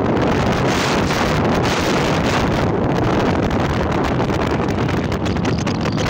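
Wind buffeting the microphone from a moving vehicle, a loud steady rush with the vehicle's road noise underneath.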